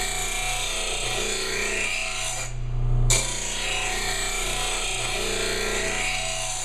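Bench blade grinder's abrasive wheel grinding the steel cutting edge of a Honda lawn mower blade to sharpen it: a steady harsh hiss over the grinder motor's hum. It breaks off for about half a second some two and a half seconds in, then resumes.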